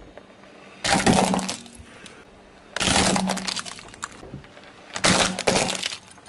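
Hard plastic toys cracking and crunching under a car tyre, three separate crushes, each lasting about half a second to a second.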